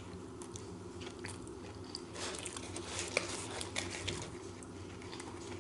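A person biting and chewing a chicken sandwich: soft crunching and mouth noises, busiest in the middle, over a steady low hum.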